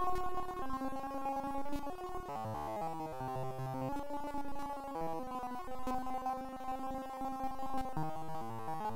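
Background music of slow held chords, with a quicker run of low notes a couple of seconds in and again near the end.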